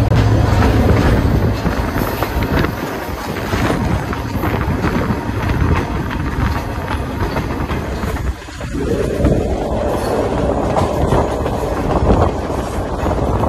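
Tren Patagónico passenger train running on the rails, a steady rushing rumble with frequent wheel clicks over the rail joints. About eight and a half seconds in the sound dips briefly and comes back as a higher, hissier rush.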